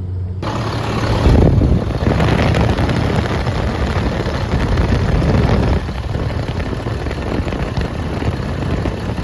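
Truck engine running, heard as a loud, steady rushing noise that starts suddenly just under a second in.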